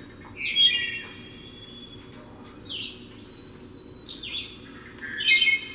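Four short bird-like chirping calls, one to two seconds apart, the first and last loudest, over a low steady hum.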